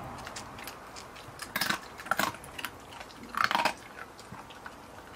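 Dalmatian chewing and crunching food in its mouth, with three loud crunches about one and a half, two, and three and a half seconds in and small clicks of chewing between them.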